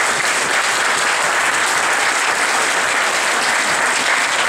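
Audience applauding steadily, greeting a performer's entrance on stage.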